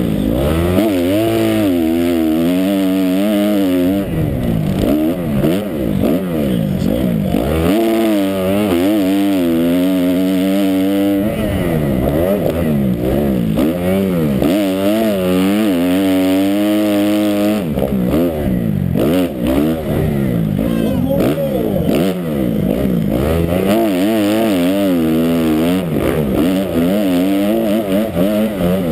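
Dirt bike engine, heard up close from on board, revving hard and dropping off again and again as the bike races around a supercross track, its pitch rising and falling through the corners and straights.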